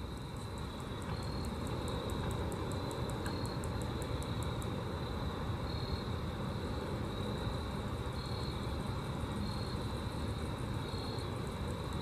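Grasshopper stridulating: a run of high, even ticks at about five a second, over a steady low rumble that grows louder over the first two seconds and is the loudest sound.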